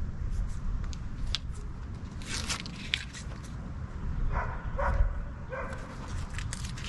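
A dog giving three short barks in quick succession about four and a half seconds in, over a steady low rumble. Before them come a few short scrapes and crackles as a plastic squeegee presses vinyl numbers onto the boat's hull.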